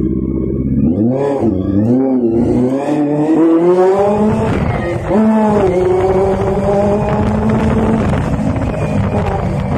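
Honda CBR400RR NC29 motorcycle's inline-four engine running under way. Its pitch climbs and drops several times with the throttle, dips about five seconds in, then holds steady for a few seconds before easing off near the end.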